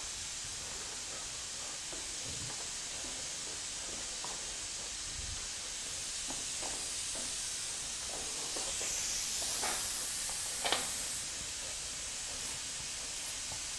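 Steady background hiss, with a few faint clicks in the second half, one sharper click about eleven seconds in.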